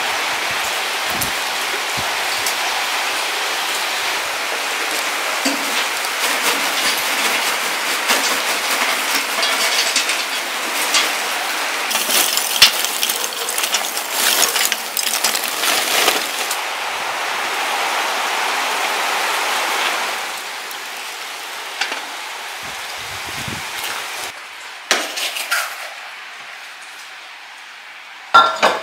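Steady rain hiss, with lumps of charcoal clattering and clinking into a metal grill bucket for a few seconds midway. After that the rain noise drops away, leaving a few light knocks.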